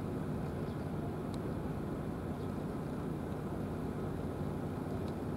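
Steady low mechanical rumble with an even level, with a couple of faint ticks over it.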